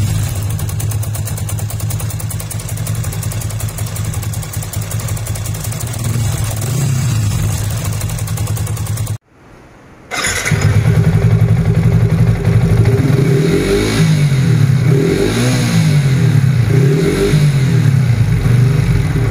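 Yamaha FZ150i single-cylinder engine running, first at a steady idle. After a brief cut about nine seconds in, it is revved up and down several times. The owner says the engine leaks air on compression here, because of a stripped thread in the cylinder head.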